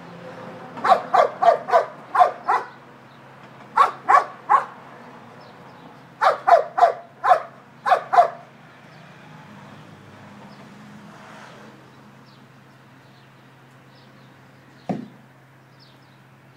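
A dog barking in quick bursts: about five barks a second in, three more around four seconds, and a run of about seven between six and eight seconds. Then a lull with only a low steady hum, broken by a single thump near the end.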